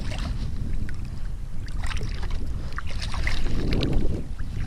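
Water splashing and sloshing against a kayak hull as a hooked king mackerel is brought alongside and grabbed by hand, with wind rumbling on the microphone.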